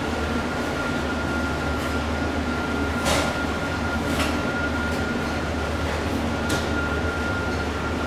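Yamaha Tracer 900's three-cylinder engine idling steadily through an aftermarket Termignoni slip-on exhaust, with a few light clicks.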